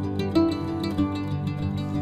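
Instrumental background music with quick plucked string notes.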